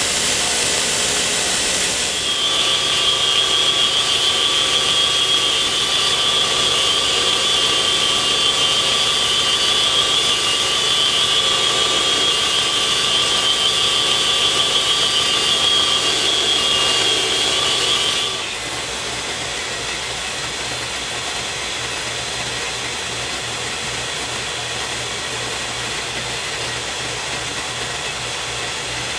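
Electric belt sander running steadily with a whine; about eighteen seconds in the sound drops abruptly to a quieter, lower steady run.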